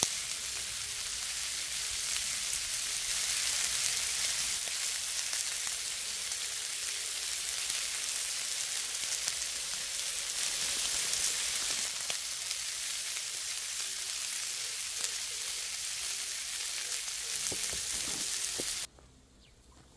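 Beef short ribs searing on a hot iron griddle: a steady sizzling hiss. It cuts off suddenly near the end, leaving a few faint knocks.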